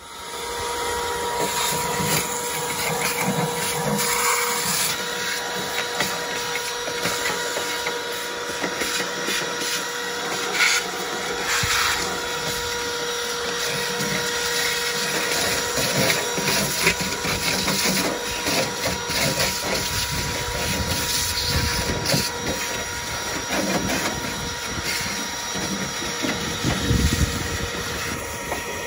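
Canister wet-and-dry vacuum cleaner coming up to speed at the start, then running with a steady motor whine over a hiss of rushing air as its hose nozzle sucks dirt from a car boot floor.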